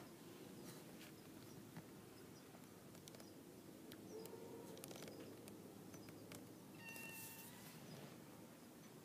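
Near silence: quiet room tone with a few light clicks and two faint, short pitched calls, about four seconds in and again about seven seconds in.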